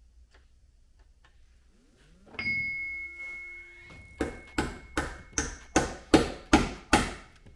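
Ball-peen hammer tapping a new U-joint bearing cap into the drive-shaft yoke of a 1985 Honda FL350 Odyssey, held in a steel bench vise: about eight quick metal strikes, nearly three a second, in the second half. Before them a single metallic clank rings on with a steady high tone.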